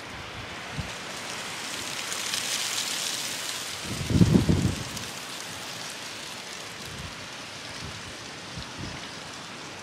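Strong wind blowing through the trees as a steady rush, swelling about two seconds in, with a brief low rumble of wind on the microphone about four seconds in.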